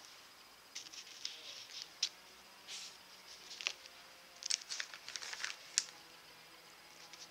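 Light, irregular clicks and rustles of small glass pieces being picked up, handled and set down on a paper-covered tabletop.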